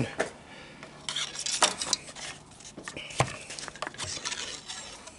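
Plastic oil dipstick being handled in a small engine's oil fill tube while the oil is checked: irregular clicks, scrapes and rubbing, with a cluster of clicks about a second in and a sharper click about three seconds in.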